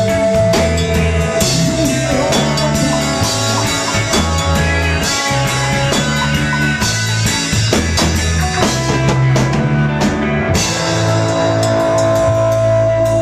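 Rock band rehearsing a song: a drum kit with frequent cymbal crashes over bass guitar and guitar.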